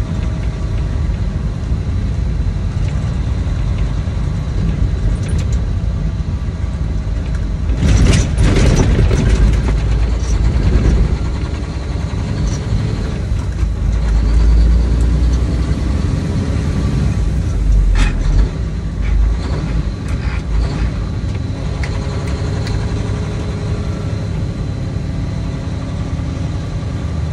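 Truck engine and road noise while driving: a steady low rumble, with a louder rushing surge about eight seconds in and a sharp click at about eighteen seconds.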